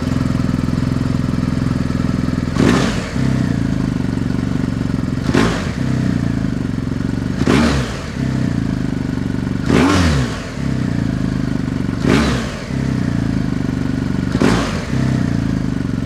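BMW R1250GS Adventure's boxer twin, running through a Jekill & Hyde exhaust with a de-catted header, idling with the exhaust valve open and blipped six times. The revs jump sharply and fall back to idle about every two seconds.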